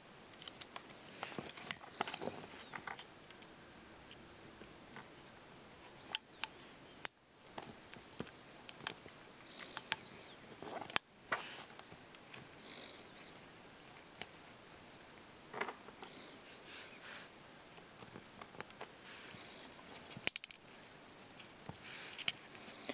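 Scattered small clicks and ticks of small phone parts being handled and fitted: iPhone 3G ribbon connectors and plastic and metal pieces pressed and slid into place.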